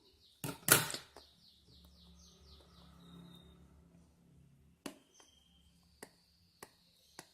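Phone box packaging cut open with scissors: a loud rustling cut about half a second in, then a few sharp clicks near the end. A bird chirps in a quick run of short high notes behind it.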